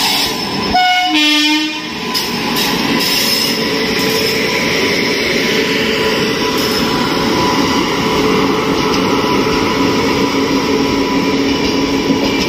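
A double-decker express train hauled by an electric locomotive passes close by, with a steady rolling rumble of wheels on rail. A short tone sounds about a second in.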